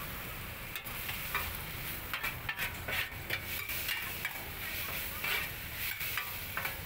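Fried noodles sizzling in a wide, shallow steel wok while a metal spatula scrapes and turns them, giving steady frying hiss with quick, irregular scraping clicks.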